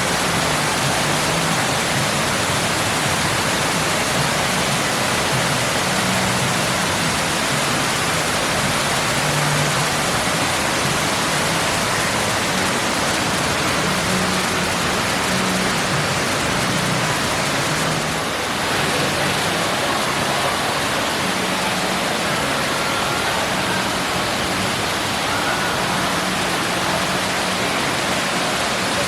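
Water falling and rushing down an artificial indoor rock waterfall into its pool: a steady, even rush of water.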